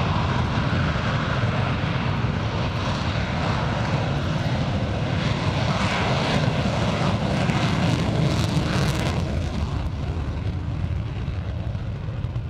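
Panavia Tornado's twin RB199 turbofans at full take-off power with afterburner during its take-off roll: a loud jet roar that peaks as the jet passes about six to nine seconds in, then fades slightly as it draws away down the runway.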